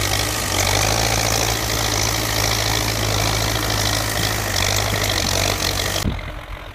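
Belarus 825 (MTZ) tractor's diesel engine running steadily as it pulls a disc plough through the field: a steady low engine hum under a dense rushing noise. About six seconds in, the sound drops abruptly and turns fainter and duller.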